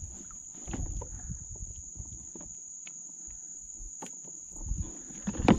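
Steady high-pitched drone of marsh insects, with wind rumbling on the microphone and scattered small knocks and water splashes from a hooked redfish at the side of the kayak, louder near the end.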